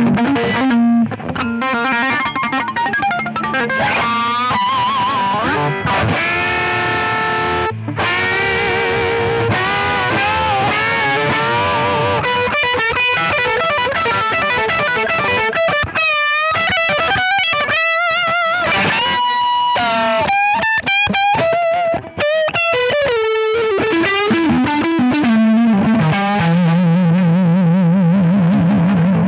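Electric guitar played through an iSet Hot Distortion mini pedal, a thick, saturated gain sound. It plays lead lines with held notes, wavering vibrato and string bends, runs down a falling line of notes, and ends on fast repeated picking of one low note.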